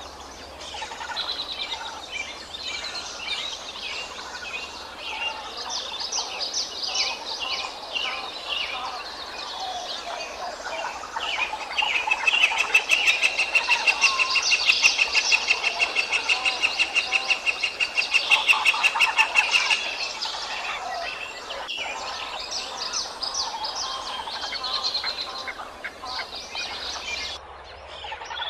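Birds chirping and calling throughout, with a loud run of fast, evenly repeated high chirps lasting several seconds in the middle.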